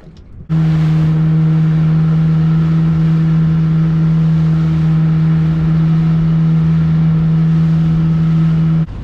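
Outboard motor running flat out at a steady pitch as the boat travels at speed, with rushing water and wind. It starts suddenly about half a second in and cuts off just before the end.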